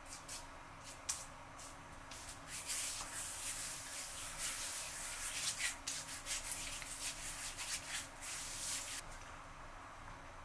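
Hands rubbing pre-shave cream into beard stubble: a scratchy rubbing of many short strokes that starts about two seconds in and stops about nine seconds in.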